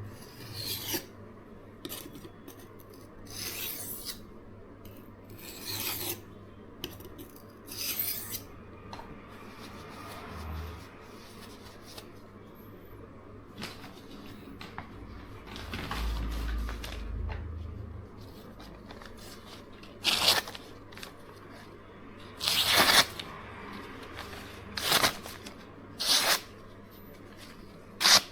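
A steel knife blade scraping in strokes across the oiled fine side of a Norton 37C silicon carbide combination sharpening stone, about one stroke every two seconds. Shorter, louder strokes come in the last third.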